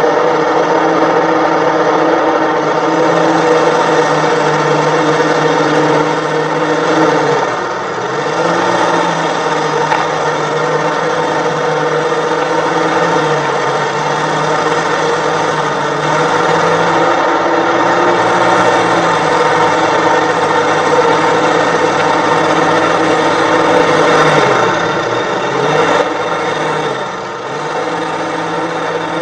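Diesel engine of a tracked forestry harvester running hard under load as the machine works to pull itself out of deep mud. The engine note is steady but dips and recovers several times.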